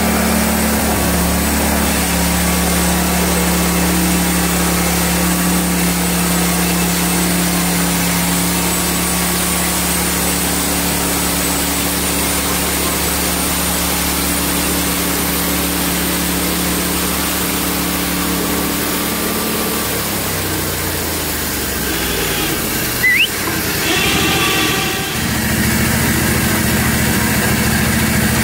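Gasoline engine of a Hud-son Homesteader bandsaw mill running steadily. About 20 seconds in its pitch slides down, there is a brief squeak and some rattling, and then it settles into a steady run again.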